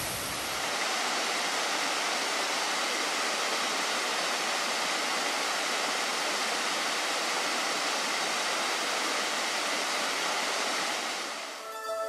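Small waterfall of several thin streams falling down a rock face into a shallow pool: a steady, even rush of falling and splashing water. It dips briefly near the end.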